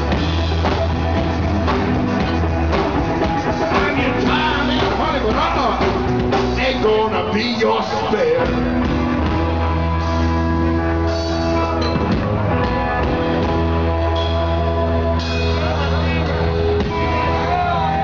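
Live three-piece rock band playing: drum kit, a steady held bass line and electric guitar, loud and continuous.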